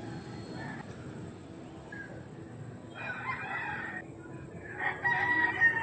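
A rooster crowing twice: one crow about three seconds in, and a louder one near the end.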